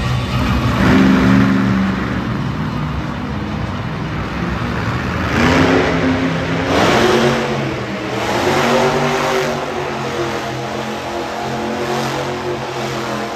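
Monster truck engine revving in several loud surges, its pitch climbing and falling with each throttle blip.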